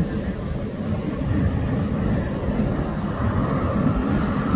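Jet airliners taxiing, their engines at low thrust making a steady rumble, with a faint higher whine growing in toward the end.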